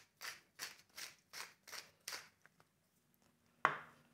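Wooden pepper mill grinding peppercorns in a run of short twisting strokes, about three a second, which stop about two seconds in. Near the end the mill is set down on the counter with one sharp knock.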